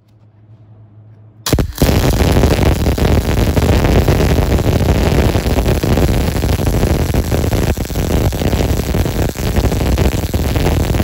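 MIG (GMAW) welding arc crackling steadily on steel. It starts abruptly about a second and a half in, after a faint low hum.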